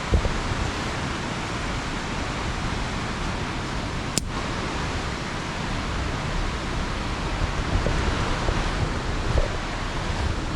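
Steady rushing roar of a waterfall, with wind buffeting the microphone. A single sharp click about four seconds in.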